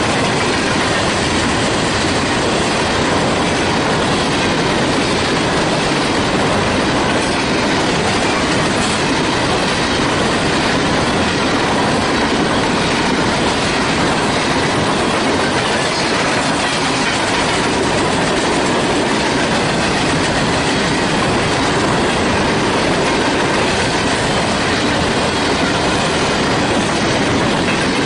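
Freight train coal hopper cars rolling past close by: a loud, steady rolling noise of steel wheels on rail, with the clickety-clack of wheels over the track.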